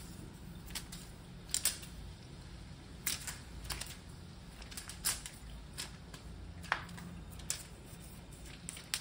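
Irregular scratchy rustles and sharp clicks as a ragdoll kitten paws and scrabbles inside a fabric cat tunnel.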